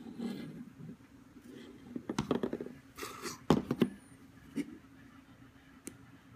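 Hands handling a plastic commlock replica prop: scattered clicks and short rubbing and scraping noises as it is turned over and its controls are pressed, with the sharpest knock about three and a half seconds in, over a faint steady hum.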